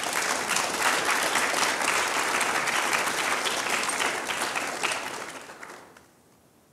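Congregation applauding: a steady patter of many hands clapping that fades away near the end.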